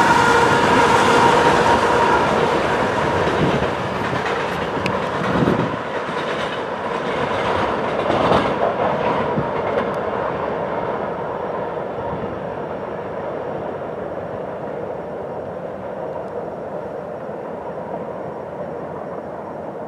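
Freight train going by and moving away: the rear GE AC4400CW locomotive passes with a steady whine over its rumble, then the wheels clatter on the rails with a few knocks about six and eight seconds in. The sound fades steadily as the train recedes.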